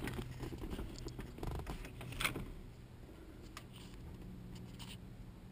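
Faint clicks and light rattling of keys at the 1967 Dodge Polara's ignition, dying out about halfway through and leaving only a faint low hum. The engine is not yet cranking.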